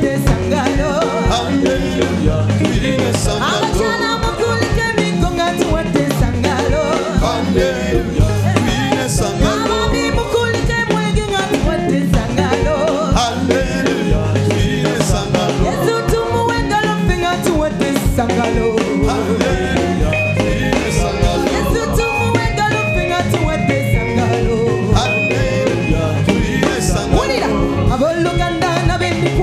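A gospel choir singing into microphones over amplified instrumental accompaniment with a steady, upbeat drum beat.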